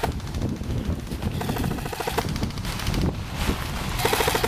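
Airsoft rifles firing short bursts of automatic fire, each a rapid rattle of evenly spaced shots; there are several bursts, one about a second and a half in and more near the end.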